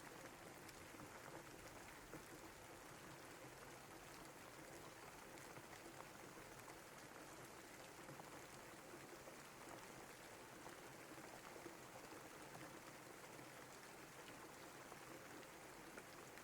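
Faint, steady rain falling, with scattered single drops ticking through the even hiss.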